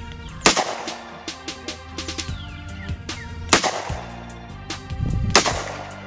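Three loud handgun shots, the first about half a second in and the others roughly three and two seconds apart, over background music with a steady beat.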